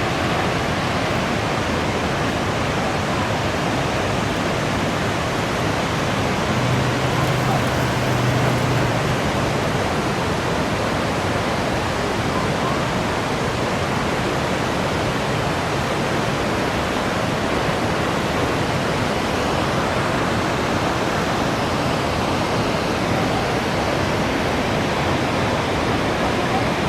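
Waterfall: a steady rush of falling water, loud and even throughout.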